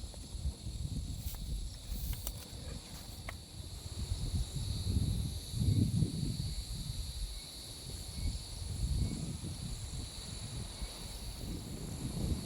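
Insects, crickets or the like, trilling steadily in several high, even tones, over a low surging rumble of wind on the microphone. A few light clicks come in the first few seconds.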